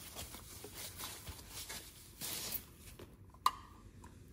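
Faint rustling and crinkling of a white wrapping as it is pulled off a plastic coin capsule by hand, louder for a moment a little past two seconds in, with a single sharp click about three and a half seconds in.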